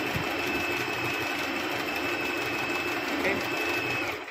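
Merritt 1409 electric sewing machine running steadily at speed with a high whine, stitching a zigzag edge. It stops abruptly just before the end.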